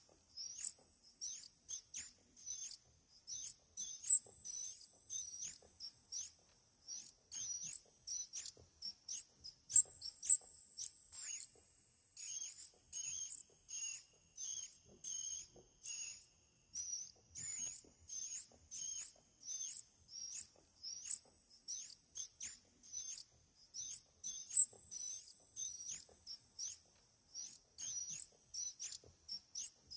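Very high-pitched squeaky chirps repeating about two a second, each a short quick glide in pitch, over a faint steady high whine: a call sound played to attract squirrels.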